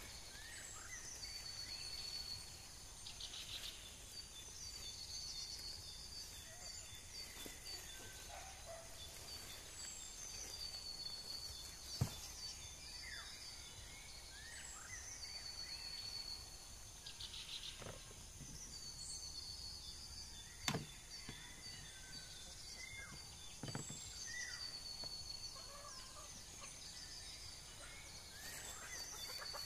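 Several small birds singing and calling, with repeated trills and short falling whistles, over a steady high insect drone. Two sharp knocks stand out, about twelve seconds in and again near twenty-one seconds.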